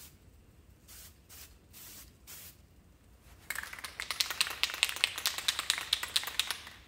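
Aerosol paint can: a few short, faint hisses of spray, then from about three and a half seconds in the can is shaken hard, its mixing ball rattling about five or six times a second.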